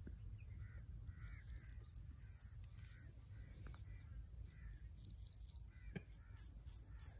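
Straight razor scraping across facial stubble in short, crackly strokes, a little louder in the last second or so. Birds call in the background.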